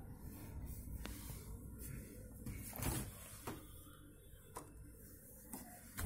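Refrigerator door being pulled open, with a few light clicks and knocks over a low steady hum.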